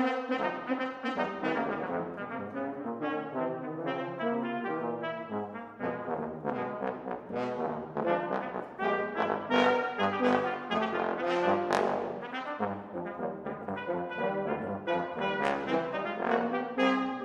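Brass trio of trumpet, French horn and bass trombone playing together, a busy passage of short, quick notes.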